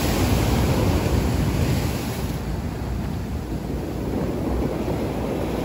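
Surf breaking and washing on a rocky shore, with wind buffeting the microphone. The rush of the surf is stronger for the first couple of seconds, then eases.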